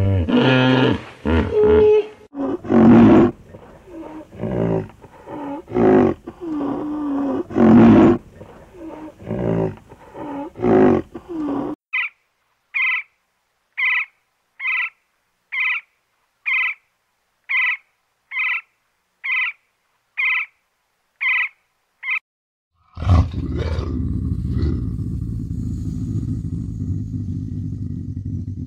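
Hippopotamuses making a run of deep grunting, honking calls. Then a great spotted woodpecker gives sharp call notes, about one a second, ten or so in a row. Near the end a low, steady rumble from a serval begins with a loud start.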